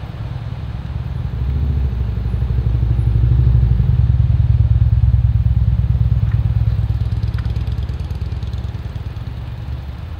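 Low engine rumble of a passing vehicle, building to its loudest in the middle and then fading away.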